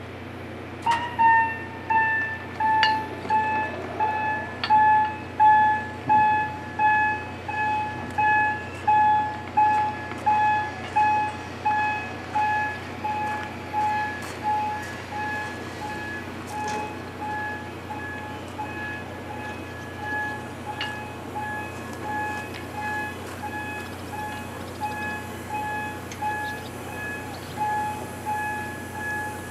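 Railway turntable's warning alarm sounding while the turntable rotates: a single-pitched beep repeating about four times every three seconds, starting about a second in, over a steady low hum.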